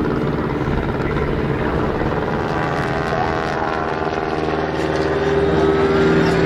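Steady mechanical running noise, a low hum with several held whining tones, from an Airbus A380 being towed by a tug; it grows a little louder over the last couple of seconds.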